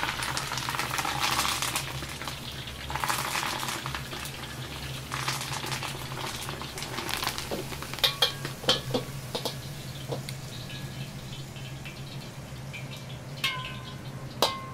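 Hot liquid from a wok hissing and splashing as shrimp and leafy greens are poured into a mesh strainer over a pot to drain. After that come sharp metal clinks of the strainer and utensils against the pot and wok, with two ringing clinks near the end. A steady low hum runs underneath.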